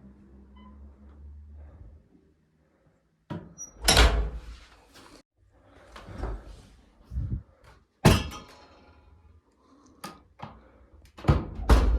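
Doors swinging shut under their door closers, with a series of thuds and latch clicks; the loudest thud comes about four seconds in, a sharp click about eight seconds in, and more loud thuds near the end.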